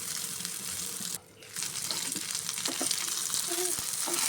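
Eggplant pieces sizzling as they fry in hot oil, a steady hiss that cuts out briefly about a second in.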